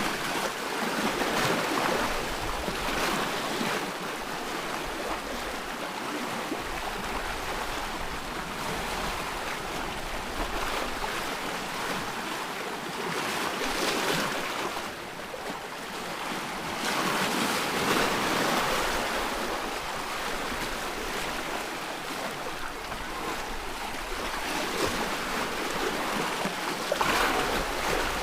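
Ocean surf: a steady wash of waves with louder swells as waves break every few seconds.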